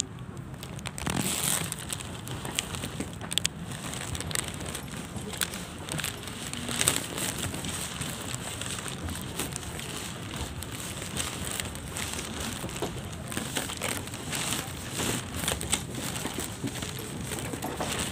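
Rain pattering on a glass-and-metal airport jet bridge: a steady, irregular crackle of drops.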